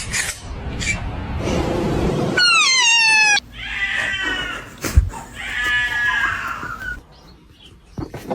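A cat meowing: one long meow falling in pitch, then two more drawn-out calls. A single sharp knock comes between them.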